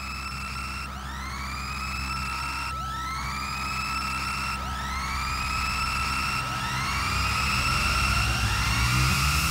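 Rock band's electronic intro effect: a rising swoop that repeats about every two seconds over a steady low drone. It grows louder and the swoops crowd closer together near the end, leading into the song.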